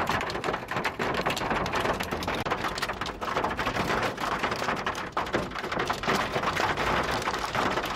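Heavy rain pouring down: a dense, steady patter crowded with many sharp little taps.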